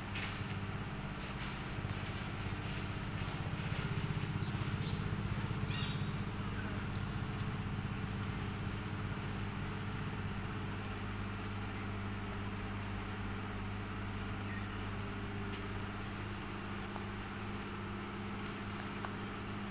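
Steady low engine hum, like a motor vehicle idling nearby. From about halfway through, a faint high chirp repeats about once a second, and there are a few light clicks.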